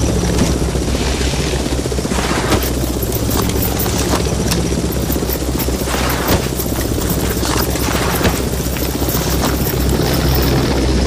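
Helicopter sound effect: steady rotor chop over a low engine hum, with a few sharp bangs scattered through.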